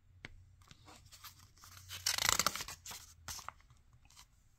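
A page of a paper picture book being turned: soft rustles and small clicks of the paper, with the loudest swish of the sheet a little past two seconds in.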